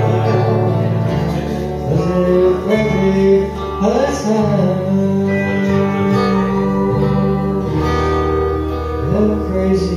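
Live country song: a steel-string acoustic guitar playing chords while a man sings into a microphone.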